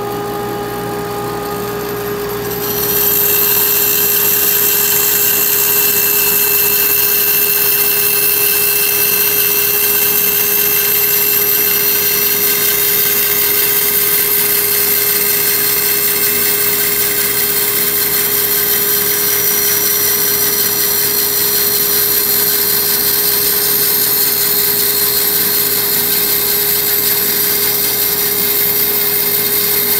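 Bandsaw running with a steady hum, its blade entering a thick glued-up wood blank about three seconds in and then cutting steadily through it: a long slot cut for a bandsaw box drawer.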